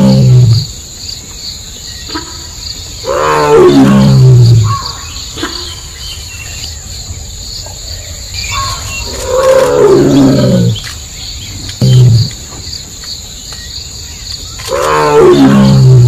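Bengal tiger calling: a run of loud roars, each sliding down in pitch over a second or two, coming every few seconds, with one shorter roar after the middle. A steady high insect drone runs behind the calls.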